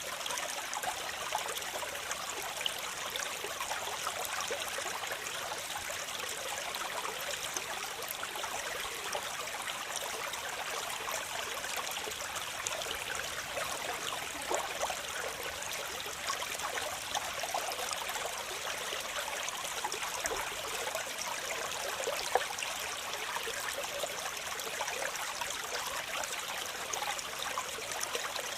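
A waterfall: water falling and splashing steadily, an even rushing hiss full of small splashes, with little low rumble.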